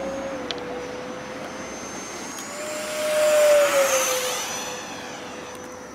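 FMS Yak 130 RC jet's 70mm electric ducted fan whining steadily. About three seconds in it flies past: the sound swells to its loudest and the whine's pitch drops as the jet goes by, then it fades.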